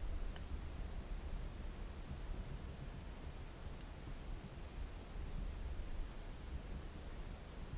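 Muffled underwater sound picked up by a submerged camera in its waterproof housing: a steady low rumble with faint, high ticks a few times a second.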